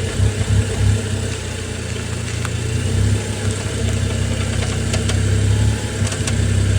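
Car engine idling with a steady low hum that grows somewhat stronger about three seconds in, with a few faint clicks over it. The noise is one that the owner hears even with the car jacked up, though none of the bushings or joints are broken.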